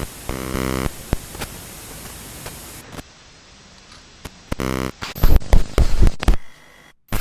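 Harsh static and noise with two short buzzes, breaking into very loud, ragged bursts of distorted noise about five seconds in, then cutting out briefly near the end: a glitching, breaking-up broadcast signal effect.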